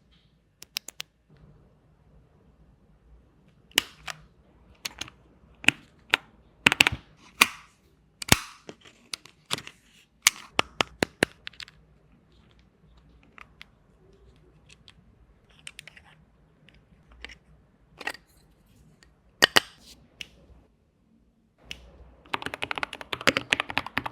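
Keychron K2 mechanical keyboard: single key presses in scattered sharp clicks, some in quick pairs, then a fast run of typing near the end.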